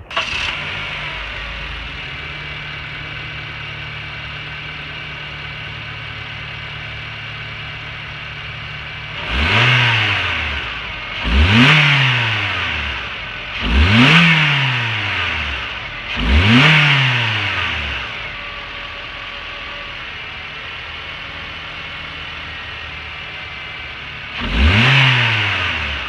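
Honda Civic inline-four engine idling, then blipped four times in quick succession and once more near the end; each rev climbs sharply and falls back over about a second and a half. No turbo whistle is heard from the turbo whistler fitted inside the intake air box.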